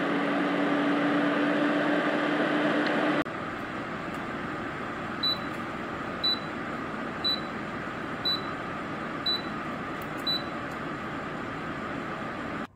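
Cook's Essentials air fryer lid running, its fan giving a steady whir with a hum. After an abrupt drop the steady whir goes on, and the lid beeps six times, about once a second, signalling that the cook is over and the unit has switched off.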